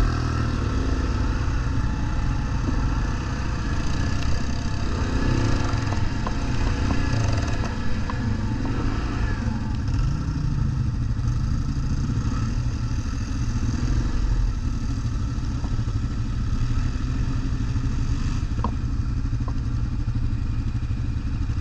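ATV engine running under way, the revs rising and falling several times, with a few sharp clicks near the end.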